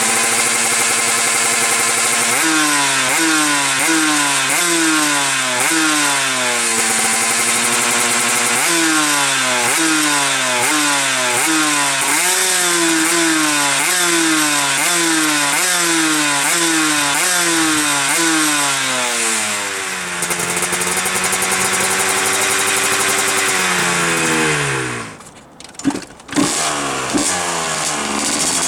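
125 cc single-cylinder two-stroke motorcycle engine being revved over and over, each quick blip of the throttle followed by the revs falling away. After a steadier stretch, the revs sink and the sound nearly drops out for a moment before the engine runs again.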